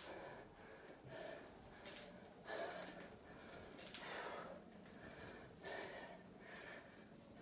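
A woman's hard breathing under exertion, quick breaths in and out roughly once a second.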